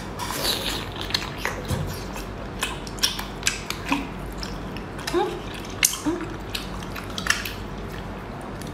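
Close-up eating sounds of a large abalone being bitten and chewed: an irregular run of wet clicks and smacks from the mouth.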